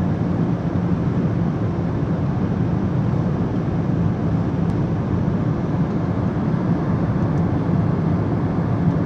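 Steady drone of an airliner in flight heard from inside the cabin: engine and airflow noise, deep and unchanging.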